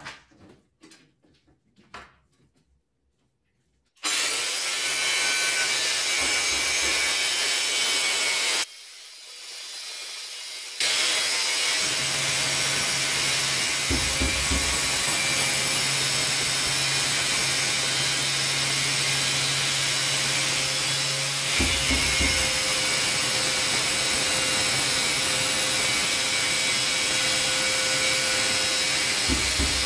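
Angle grinder with a diamond blade grinding a 45-degree bevel along the edge of a tile: a loud, steady grinding run. It starts about four seconds in, drops off briefly near nine seconds and comes back up about eleven seconds in.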